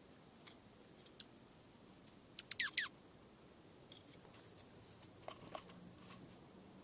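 A small songbird gives a quick run of three or four sharp notes, each falling steeply in pitch, about two and a half seconds in, then two shorter, lower notes a little after five seconds. Faint scattered ticks of small birds hopping in the evergreen branches overhead.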